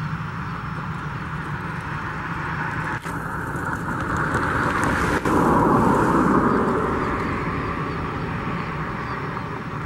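Airbus A319 airliner's jet engines running at taxi power as it taxis and turns. The steady jet noise swells to its loudest about five to six seconds in, as the tail swings toward the listener, then eases off.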